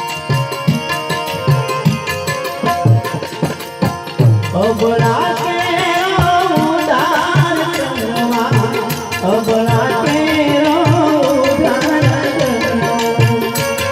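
Live Gujarati devotional santvani music: a tabla beating a steady rhythm under the held tones of a harmonium. A man's singing voice comes in about four seconds in and carries on for most of the rest.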